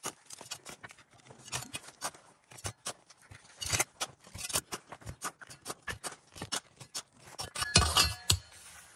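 Small metal shovel scraping into loose soil and tossing dirt and stones onto ceramic tiles: irregular scrapes, clinks and gritty impacts, with a louder clatter about eight seconds in.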